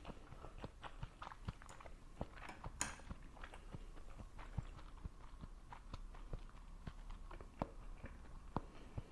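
Close-up eating sounds: a person chewing, with small wet mouth clicks about twice a second.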